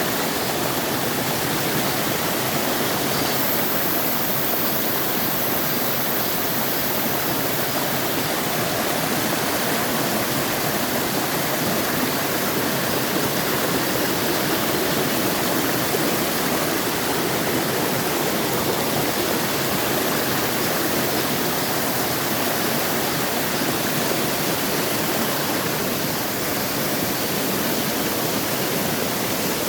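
Mountain stream rushing steadily over rocks, a continuous even water noise.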